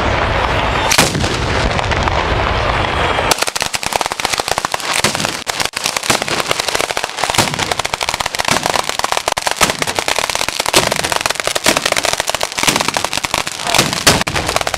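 Ground firework battery (batteria alla bolognese) going off: a dense, continuous rumble of blasts, then about three seconds in a rapid, unbroken stream of sharp bangs and crackles.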